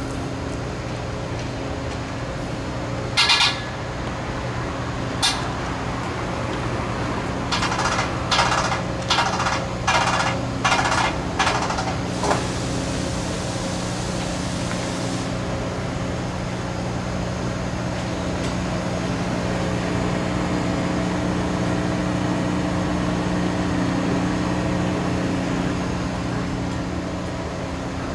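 The engine of the Scheuchzer Grizzly 104 L rail-grinding train running steadily, its hum growing a little louder in the second half. Two sharp short noises come about 3 and 5 seconds in, then a quick run of short noise bursts from about 8 to 12 seconds in.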